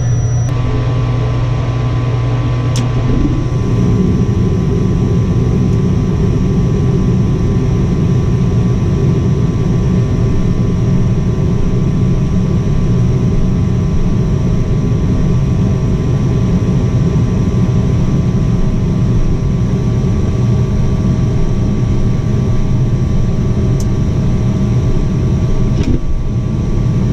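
Lennox ML193 gas furnace running: a steady rush with a faint hum, growing fuller about three seconds in, with a few faint clicks along the way. It is a furnace that short-cycles, with a faulty pressure switch suspected.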